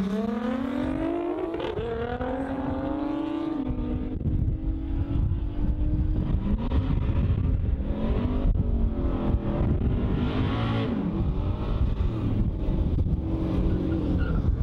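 Drag race: a big single-turbo Mitsubishi 3000GT VR4 and a Nissan GT-R accelerating hard off the line. The loudest engine climbs steeply in revs, drops at a gear change about two seconds in, then runs on as the cars pull away. From about four seconds in, a heavy low rumble takes over and the engines blur into it.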